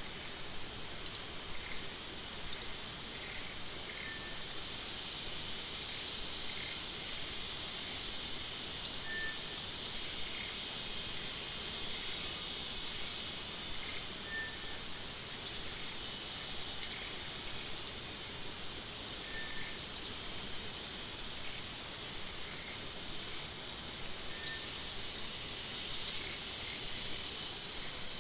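Wild outdoor ambience: a steady high insect drone, with short, sharp rising bird chirps every second or two.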